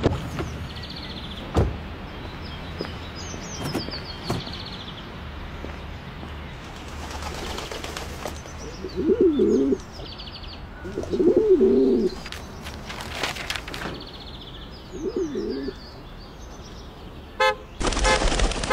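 Street ambience with pigeons cooing three times, small birds chirping and a few light clicks. Near the end come a couple of short car-horn toots and a brief burst of noise.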